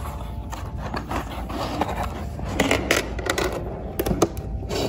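Cardboard laptop box being opened: the lid and its tuck flap scraping and rubbing against the box as they are pulled free, with several sharp cardboard taps and knocks in the second half.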